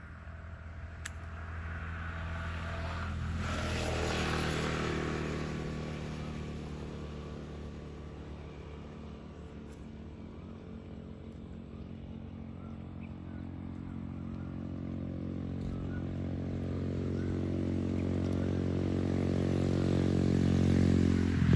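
A small engine running. It grows louder about four seconds in, fades a little, then builds again toward the end.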